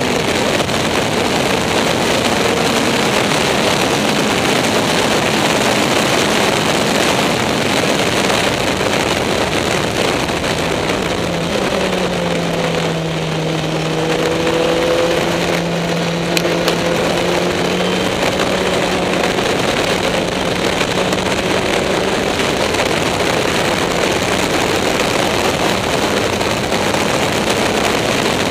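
Caterham SP/300.R race car at speed, heard from its open cockpit: a dense rush of wind and road noise with the engine note running underneath. The engine pitch drops and the sound eases slightly about halfway through, through a corner, then the note holds steady.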